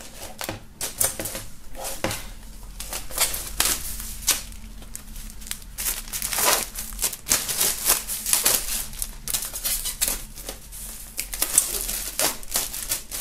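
Plastic shrink-wrap film crinkling and crackling in irregular bursts as it is peeled and pulled off a gatefold vinyl record sleeve.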